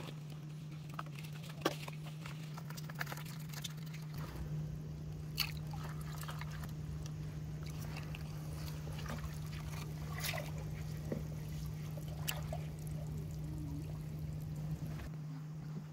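Water trickling and sloshing, with scattered light clicks and knocks, over a steady low hum.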